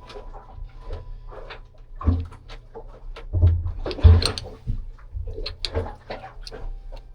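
Clinks and knocks of metal fittings and tools being handled while refitting the shift cable's washers and clevis at the saildrive shift lever, with a few heavier thumps about 2, 3.5 and 4 seconds in.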